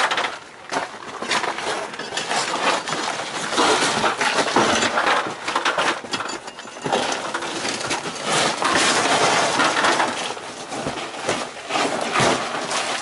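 Flat shovel scraping and prying up old asphalt roofing: continuous gritty scraping and crunching, broken by sharp clinks and knocks of the blade.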